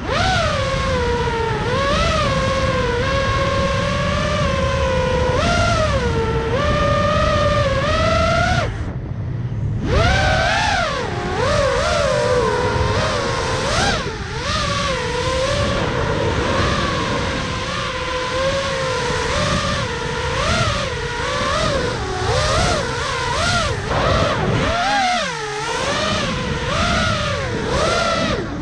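FPV quadcopter's brushless motors and propellers whining, the pitch rising and falling with the throttle. About nine seconds in the whine briefly drops away, then climbs back in a quick rising sweep.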